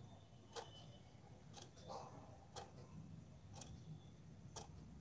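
Faint ticking of a clock, one tick a second, in an otherwise quiet room.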